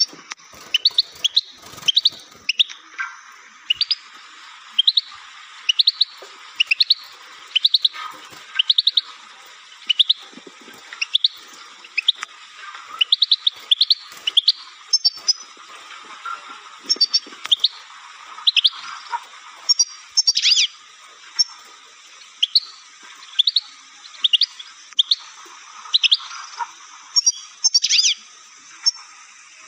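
Caged European goldfinch and canary chirping, short high chirps one or two a second.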